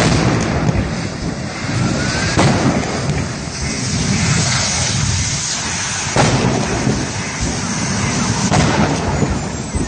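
Vehicle fire on a highway burning with a loud, constant rushing noise as fireballs go up. Sharp blasts ring out about two and a half seconds and about six seconds in.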